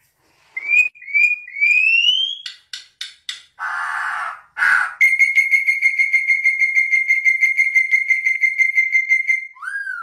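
Yellow-and-black oriole singing. It gives three rising whistled notes, then a harsh rasp. From about halfway it holds one long, steady trilled whistle for some four and a half seconds, ending in a short bent note.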